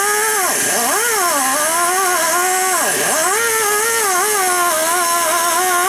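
Handheld cut-off tool with an abrasive wheel cutting through a steel bolt held in a vise. The tool's high whine sags in pitch whenever the wheel is pressed into the bolt, sharply about half a second in and again about three seconds in, over a steady grinding hiss. The bolts are being shortened so they won't bottom out in the new water pump.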